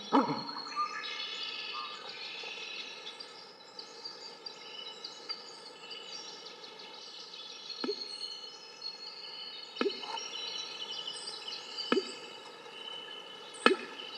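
A chorus of many small birds chirping and trilling. A few sharp clicks come about every two seconds in the second half.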